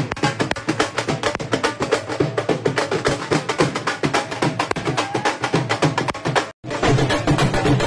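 Fast, continuous dhol drumming, rapid sharp stick strokes over a deeper beat. It breaks off about six and a half seconds in, and different music follows.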